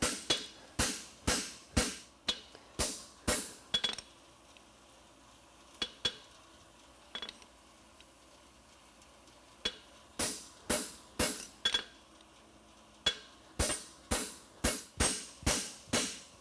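Farrier's hammer striking a steel horseshoe on the anvil while forging the shoe, about two ringing blows a second. Midway the blows stop for about six seconds, with only a few light taps, then resume at the same pace.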